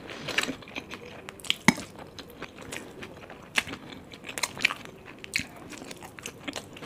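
A person chewing a mouthful of momos (dumplings), with irregular mouth clicks and smacks.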